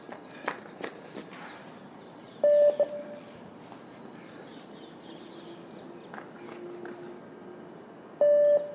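Beep-test signal sounding twice, about five and a half seconds apart, each a short, loud, steady high beep marking the end of a timed shuttle run. A few sharp knocks come about half a second to a second in.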